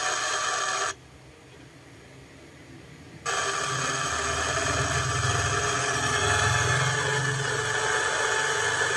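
GREATNICE GTS-1346 portable speaker gives a short electronic ringing tone, falls quiet for about two seconds, then puts out a steady loud hiss of FM radio static between stations, with a low rumble under it for a few seconds.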